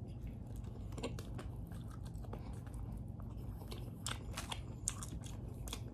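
A person chewing and gnawing on a tender pig's trotter close to the microphone: many short, scattered clicks of mouth and teeth, a few sharper ones about four to five seconds in, over a steady low hum.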